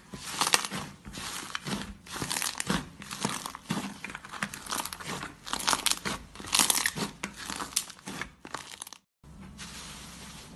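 Slime squeezed and pressed by hand, crackling and popping in dense clusters as air pockets burst. The crackling breaks off about nine seconds in, and a quieter, steady rustle of fluffy slime under a pressing hand follows.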